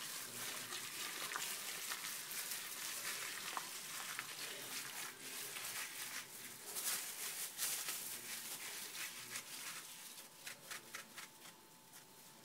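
Hand squishing and mixing a wet gram-flour batter of chopped spinach, potato and onion in a glass bowl: soft wet squelching and crackling that dies away near the end as the mixing stops.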